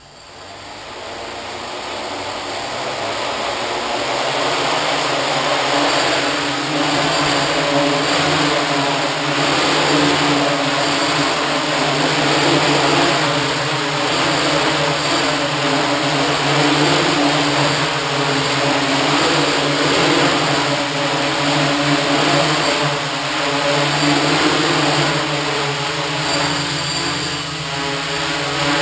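Hexacopter's brushless motors and propellers spinning up and lifting off, getting louder over the first few seconds, then a steady whirring hover whose pitch keeps wavering as the flight controller adjusts motor speeds.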